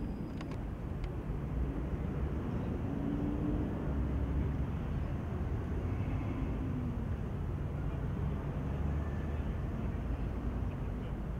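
Steady low outdoor rumble, with a few faint clicks in the first second.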